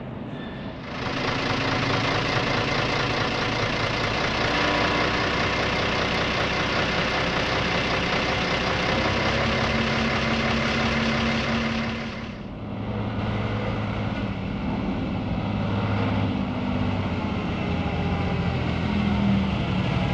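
DAF truck engine and drivetrain running. A loud, steady running noise with a faint whine lasts to about 12 seconds in, then drops to a lower engine rumble whose pitch shifts up and down.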